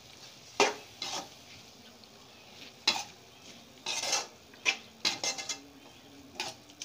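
A metal spoon scraping and clacking against a metal pan in irregular strokes while stirring chicken pieces in a wet tomato-onion masala.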